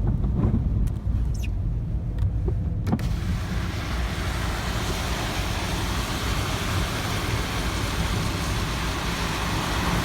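Car driving on a snowy street: a steady low engine and road rumble, and about three seconds in, after a click, a steady broad hiss of wind and road noise comes in and holds.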